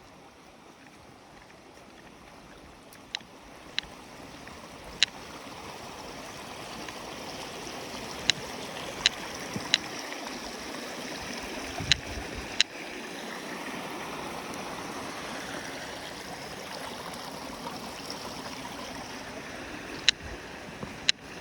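Rushing mountain stream, growing louder over the first several seconds as it is approached, then steady. About ten sharp, separate clicks stand out above it.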